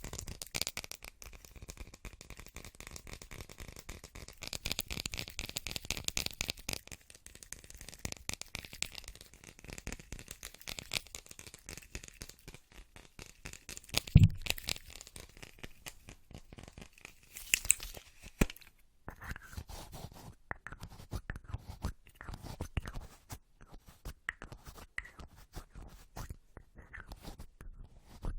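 Close-miked ASMR trigger sounds: rapid fine tapping and scratching, with one louder knock about fourteen seconds in, then sparser soft clicks in the second half.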